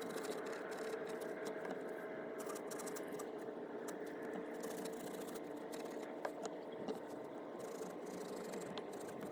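Hand saw cutting through a thick kudzu root, a faint repeated rasping of the strokes over a steady low hum.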